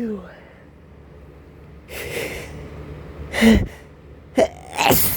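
A man sneezing from a pollen allergy: a sharp noisy intake of breath about two seconds in, then a loud voiced sneeze about halfway through, and another sneeze near the end that follows a quick catch of breath.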